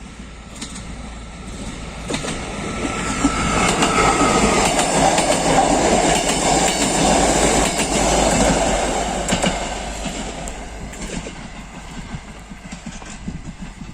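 A rail vehicle passes by, its wheels clattering over the rail joints. The sound builds over the first few seconds, is loudest in the middle, then fades away.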